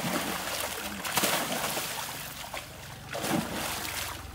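Pond water splashing and sloshing as a man works the water with his hands and a cast net from a plank, starting suddenly with heavier splashes about a second in and again just after three seconds.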